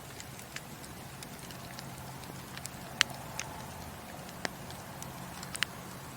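Wood fire burning in a fireplace with a steady low rush. Scattered sharp pops and crackles of burning wood come through it, the loudest about halfway through and a quick double pop near the end.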